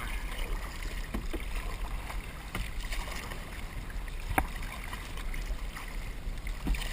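Kayak on open water: a steady wind rumble on the microphone with water sounds, and a few sharp knocks, the loudest about four seconds in.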